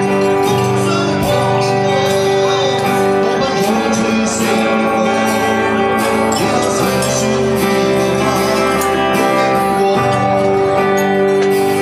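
Harmonica playing held chords and a melody over acoustic guitar accompaniment, live band music.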